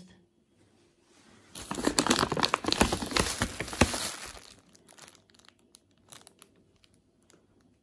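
Plastic sack of dry dog food crinkling as it is handled: a dense crackling rustle of about three seconds, then a few faint rustles.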